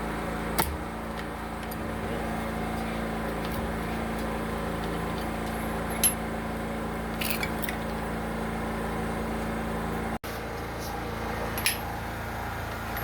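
A steady low machine hum, with a few short sharp knocks or clicks now and then.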